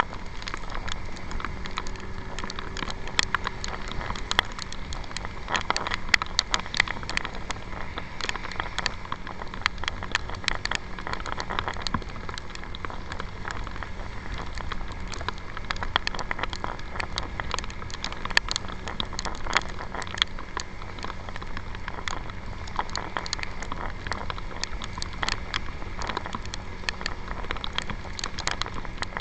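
Raindrops ticking and popping irregularly on a handlebar camera over the steady hum of a motor scooter riding on a wet road.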